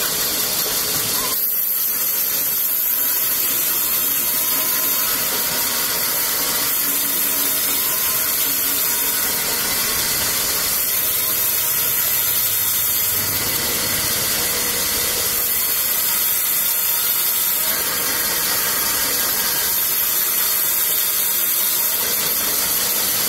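Large vertical band saw ripping lengthwise through a thick block of koroi wood: a steady cutting hiss with a high whine on top that holds at one level throughout.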